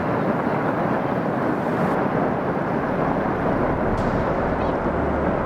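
Snow avalanche running, a steady rushing rumble, with wind buffeting the microphone.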